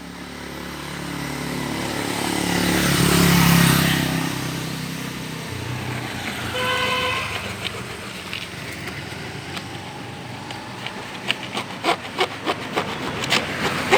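A road vehicle passes, growing louder to a peak about three and a half seconds in and then fading. A short horn toot follows about seven seconds in. Near the end comes a run of sharp scraping clicks.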